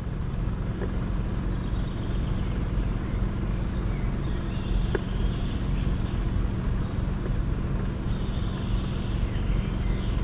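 Steady low rumble of wind buffeting the camera's microphone in a beech forest, with faint bird calls now and then high above it.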